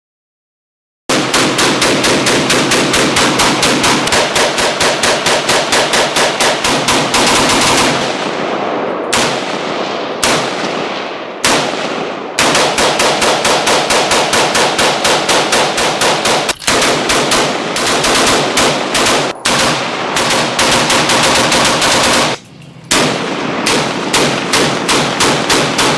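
Rapid gunfire: long strings of shots fired several a second, broken about a third of the way in by three separate shots that ring out and echo, then more rapid strings with short pauses.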